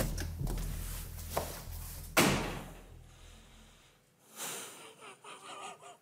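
An interior door being opened with a click of the latch, then pulled shut with a bang about two seconds in.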